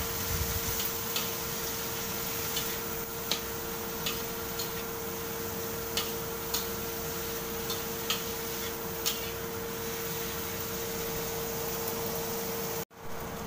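A spatula clicks and scrapes against a wok at irregular moments while shredded cabbage and carrot are stir-fried, over a steady hiss of frying and a low hum. The sound cuts out briefly near the end.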